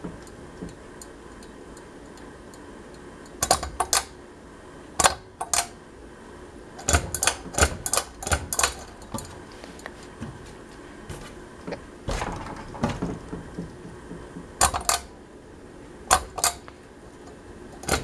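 Irregular clusters of sharp clicks and light rattles, some single and some in quick runs of several, over a steady low background.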